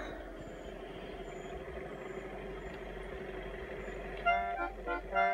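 A steady hum, then about four seconds in a song's intro starts: short chords on an accordion-like reed instrument, played in a rhythmic pattern.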